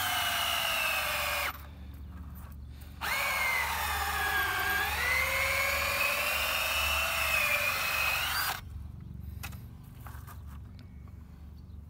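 Makita 18V cordless drill boring into a birch log with a long wood bit. It runs in a short burst, then in a longer run from about three seconds in, whose whine sags in pitch as the bit bites into the wood and climbs again before it stops.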